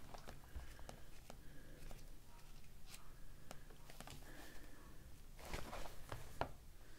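Thin Bible pages rustling as they are leafed through, with scattered faint clicks. A louder swish of a page being turned comes about five and a half seconds in.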